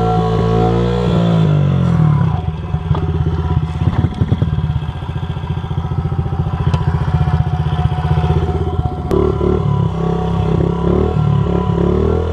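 Small dirt bike engine running. It holds steady revs, drops to a slower, pulsing beat about two seconds in, and picks up to steady higher revs again around nine seconds.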